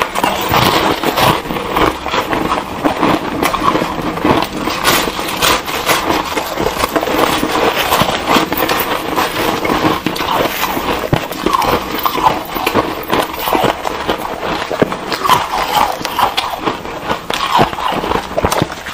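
Ice being crunched and chewed close to clip-on microphones: a dense, continuous run of crackling crunches and sharp clicks from two eaters at once.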